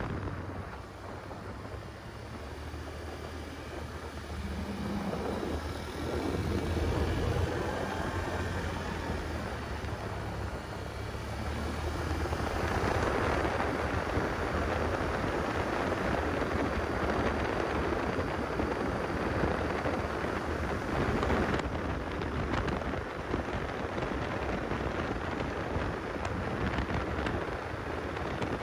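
Rushing noise of ocean surf and wind buffeting a phone's microphone, with a quad's engine running underneath; it grows louder about six and twelve seconds in.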